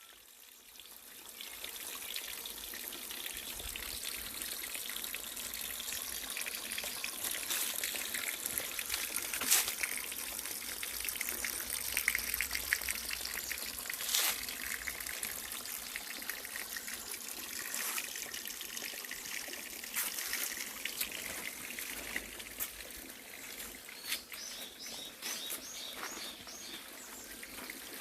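Small forest stream trickling and splashing over rocks, a steady water hiss. A bird chirps several times near the end.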